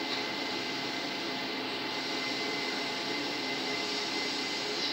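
Steady, even hiss with a faint constant hum underneath: workshop background noise, with no distinct event.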